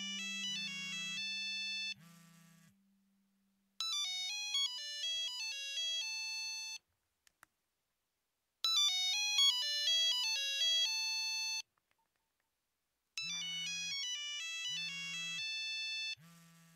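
Mobile phone ringing with a melodic ringtone, repeating its short tune four times with pauses of about a second between. A low buzz pulses on and off under the first and last repeats.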